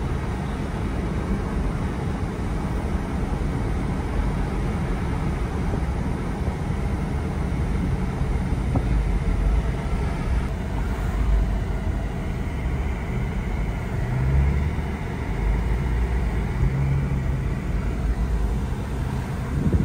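Steady in-cabin rumble of a Jeep Wrangler JL driving along, with engine and tyre noise. The character of the noise shifts about halfway through as the drive goes from a gravel road onto town pavement.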